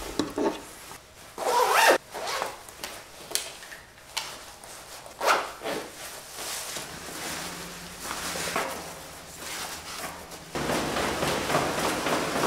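A jacket-pocket zipper pulled in several quick strokes, with fabric rustling as the pocket is handled.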